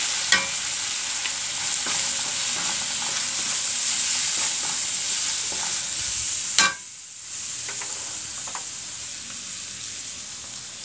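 Chopped onions, green chillies and bay leaves sizzling in hot olive oil in a karahi, with ground cumin and coriander just added, while a wooden slotted spatula stirs and scrapes against the pan. About two thirds of the way through there is a sharp knock and the sound drops out briefly, then the sizzle goes on a little quieter.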